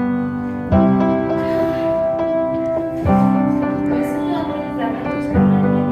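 Background music: an instrumental stretch of a soft pop song, held piano chords changing about every two and a half seconds, with no singing.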